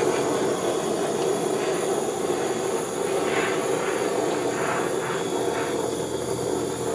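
Handheld gas torch burning with a steady hiss, its flame played over wet layered acrylic paint to bring up the colours and pop the surface bubbles.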